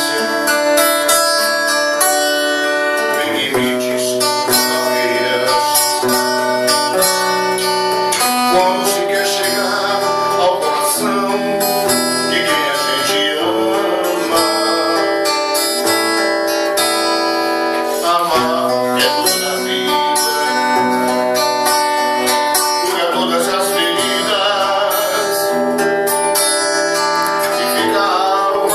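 Acoustic guitar played continuously in chords and picked notes, with a man singing along.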